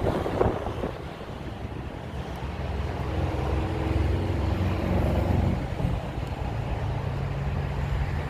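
Low engine rumble with a steady hum, growing louder about three seconds in and easing back about two and a half seconds later.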